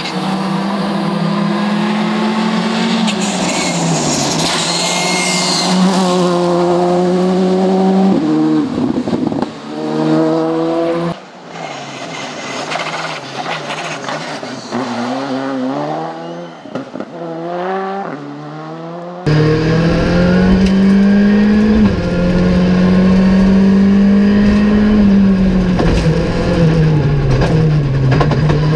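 Škoda Fabia rally car engine revving hard, its pitch climbing and dropping over and over through gear changes as the car drives the stage. About two-thirds of the way in the sound switches to inside the car's cabin, where the engine is louder and carries a heavy rumble.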